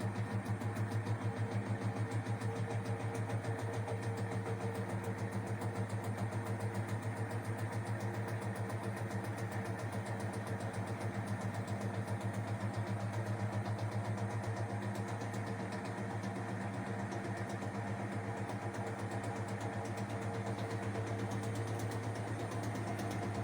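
Front-loading washing machine running: a steady motor hum with a fast, even pulsing vibration.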